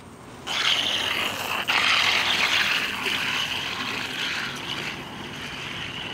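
Longboard's urethane wheels sliding sideways across concrete during a hands-down slide: a loud hissing screech that starts suddenly about half a second in, breaks off for an instant, then slowly fades.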